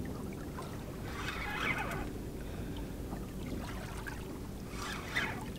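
Water lapping against the hull of a small boat, with two short louder rushes of water sound, one about a second and a half in and one near the end.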